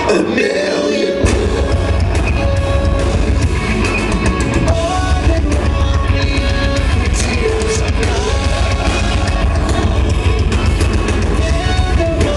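A progressive metal band playing live at full volume, recorded from within the audience: distorted electric guitars, bass and drums with sung vocal lines over them. The bass and drums drop out for about a second at the start, then come back in.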